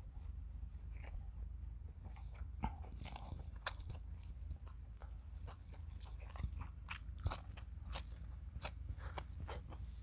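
Close-up chewing of fresh herbs, coriander and spring onion, with a string of sharp, irregular crunching clicks. Underneath runs a steady low rumble of strong wind on the microphone.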